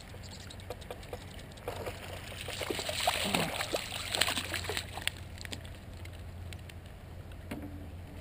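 Water splashing and pouring for about three seconds, with small clicks and knocks, starting a couple of seconds in and fading out by the middle.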